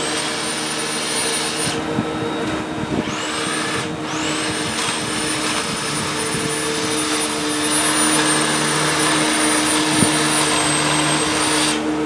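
Corded electric rotary lawnmower running over grass with a high motor whine and a steady low hum. The motor cuts out twice briefly, about two and four seconds in, and each time spins back up with a rising whine.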